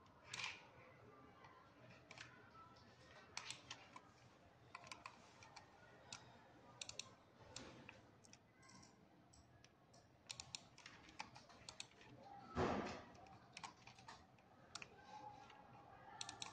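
Faint, irregular clicks and taps of a computer keyboard and mouse, with one louder thump about twelve and a half seconds in.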